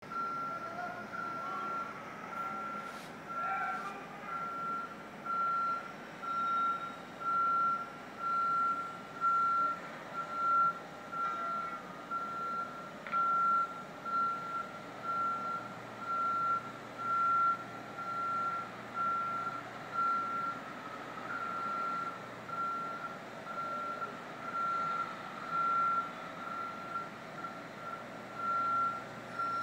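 Construction boom lift's motion alarm beeping: a single high tone repeating about once a second without a break, over a steady low background hum.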